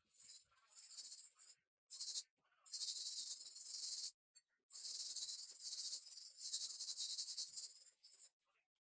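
Hand-worked scraping strokes: about five spells of dry rasping hiss, some short and some long, broken by abrupt silent gaps.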